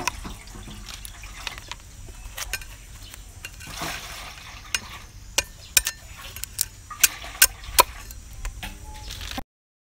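A steel cleaver chopping the tips off snail shells on a wooden chopping block: sharp, irregular cracks and knocks, about one or two a second. The sound cuts out just before the end.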